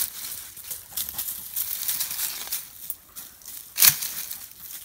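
Footsteps crunching and rustling through dry leaf litter and twigs, a run of irregular crackles, with one louder crunch near the end.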